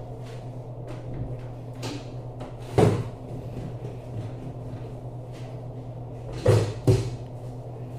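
Kitchen containers or utensils being handled and knocked down on a work surface: three sharp knocks, one about three seconds in and two close together near the end, over a steady low hum.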